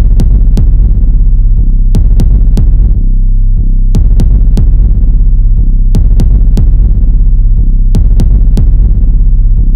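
Background music: an electronic track with a deep, droning bass and a sharp percussive pattern that repeats every two seconds.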